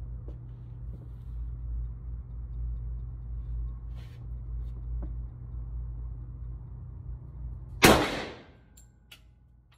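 A single shot from a 1911 pistol near the end, a sharp loud report that rings on briefly in the range booth. Before it there is only a steady low hum with a few faint ticks.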